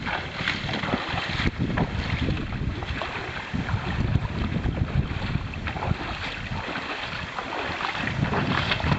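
Wind buffeting the microphone, an irregular, gusty low rumble, with scattered light knocks.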